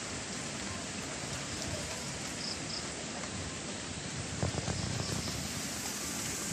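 Steady hiss of a tropical storm, rain and wind in the trees. From about two-thirds of the way in, irregular low rumbling gusts of wind buffet the microphone.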